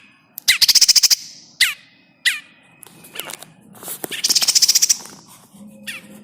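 Prinia (prenjak) distress calls: two harsh, rapid rattles about a second long, one near the start and one past the middle, with short sharp calls dropping in pitch between them. These are the distress calls of a trapped prinia, played as a lure to draw in birds.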